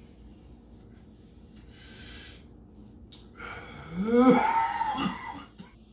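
A man taking a hit from a lit bowl: a soft hissing draw about two seconds in, then a loud, forceful breath of smoke let out with a throaty voiced note that rises and falls, and a shorter one a second later.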